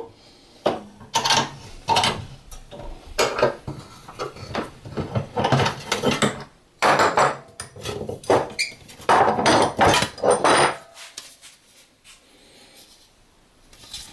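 Irregular metal clattering and scraping, sheet aluminium and clamps being handled and worked while bending a sheet-metal box, stopping about eleven seconds in.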